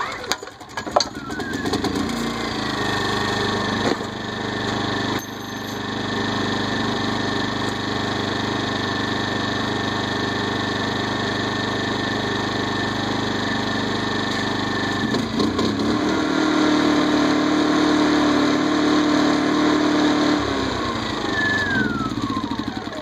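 Champion 2000 W inverter generator's small four-stroke engine starting up and running steadily. It speeds up to a higher pitch about 15 seconds in, settles back about five seconds later, then winds down with a falling pitch near the end as it is shut off.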